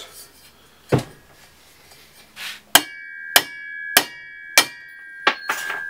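Big hammer striking the steel tailshaft of a Holden Commodore held in a vise, to knock the shaft apart at the centre bearing: a dull knock about a second in, then five sharp blows a little over half a second apart. The steel tube rings on between the blows.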